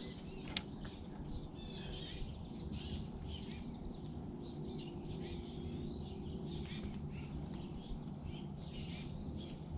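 Small songbirds chirping overhead: many short, high, falling chirps repeating, over a steady high-pitched insect drone. A single sharp click about half a second in.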